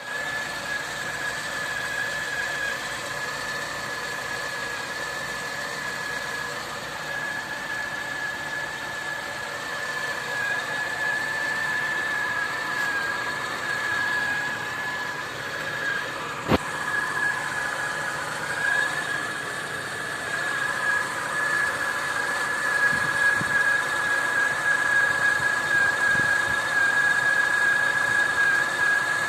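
A steady, high-pitched whistle over a running car engine, with a single sharp click about halfway through. The owner takes the whistle for the crankshaft position sensor.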